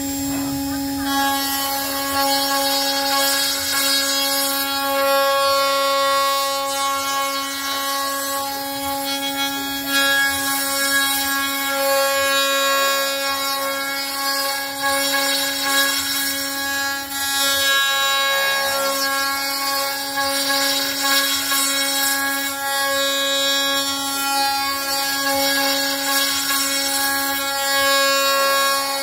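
Electric spindle motor running with a steady high whine while its end-mill bit cuts into the end of a softwood board, adding a rough rasp of wood being milled from about a second in.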